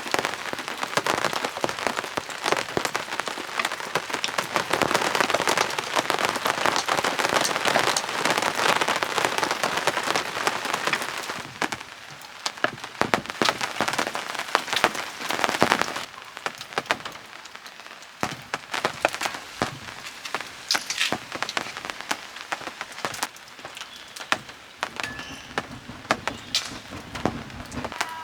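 Rain falling on a surface: a dense, steady shower for about the first twelve seconds, then lighter, with separate drops ticking.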